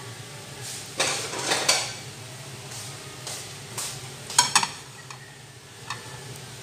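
Kitchen utensils and dishes clattering: a scraping rattle about a second in, then two sharp ringing metallic clinks near the middle and a lighter one near the end. Under it, an eggplant omelette sizzles faintly as it fries on low heat.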